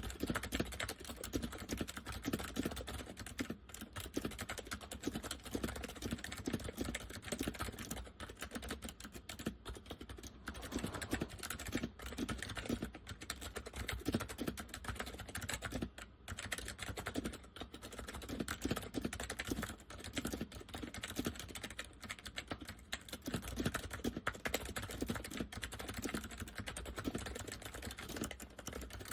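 Steady typing on an Acer 6312K7 keyboard with Acer semi-mechanical switches in a KB101A-style chassis: a dense stream of key clicks with a deep sound from the chassis. The typing pauses briefly about four seconds in and again around sixteen seconds in.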